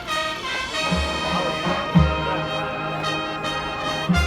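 High school marching band playing: the brass holds sustained chords, with heavy low drum hits about one and two seconds in and again near the end.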